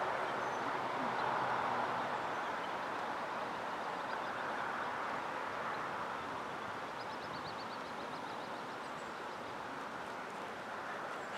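Steady outdoor background noise with no clear single source, slowly easing over the stretch, and a short rapid run of high ticks, like a small bird's trill, about seven seconds in.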